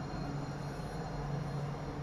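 Tram moving slowly alongside a platform: a steady low hum over a constant rumble.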